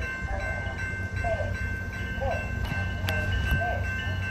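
Train engine running steadily nearby: a low rumble with a constant high-pitched whine. A short chirping call repeats about once a second over it.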